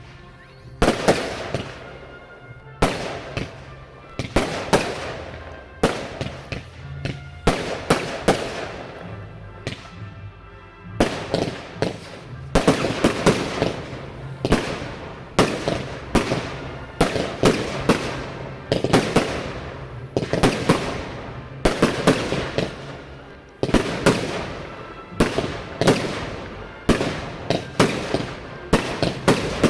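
Fireworks display: a steady run of aerial shells bursting, sharp bangs about one or two a second with crackle after them, over music from the display's sound system.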